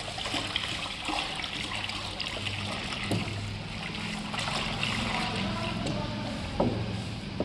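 Thick 90% acid slurry pouring from a plastic bucket into a drum of caustic-soda water while a wooden stick stirs it: a steady watery pouring and sloshing, with a couple of faint knocks. This is the acid slurry being added to the caustic solution in liquid-detergent making.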